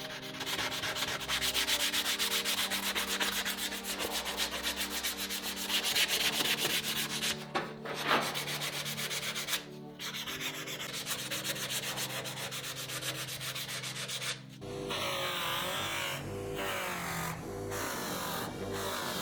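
Sandpaper rubbing by hand on a wooden knife handle, fast back-and-forth strokes with a couple of brief pauses, for the final smoothing. About three-quarters of the way through the sanding stops and background music takes over.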